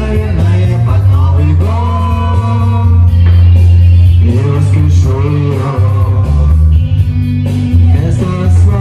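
A man singing into a handheld microphone over a loud backing track with a heavy, steady bass; the voice glides between notes and holds some of them.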